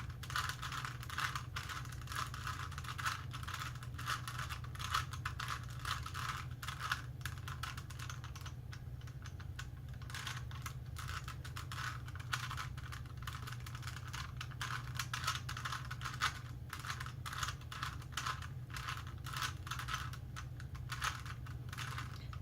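Rubik's Cube being twisted by hand: a steady run of quick, irregular plastic clicks and rattles as its layers are turned, over a low steady hum.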